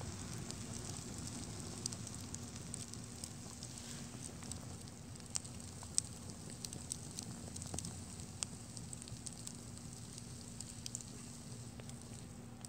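Small open fire of plastic and paper crackling, with irregular sharp pops and snaps scattered through and a low steady rush underneath.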